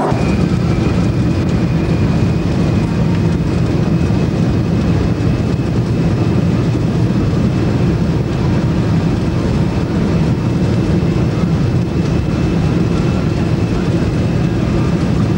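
Airliner engines and cabin noise heard from inside the cabin: a steady low rumble with a thin, steady high whine above it, the plane on the ground.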